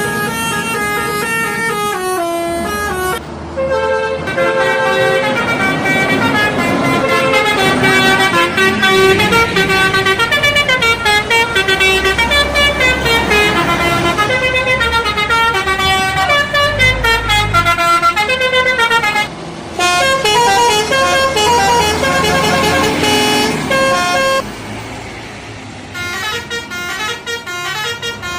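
Indonesian bus telolet horns: multi-tone air horns playing quick melodic runs of notes that step up and down. The tune and loudness change abruptly a few times, about three seconds in, near twenty seconds and near the end.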